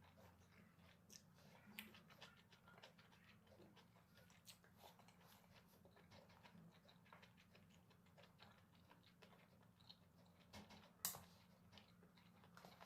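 Near silence with faint eating sounds: scattered small mouth clicks and smacks of chewing, and one sharper click about 11 seconds in, over a faint steady low hum.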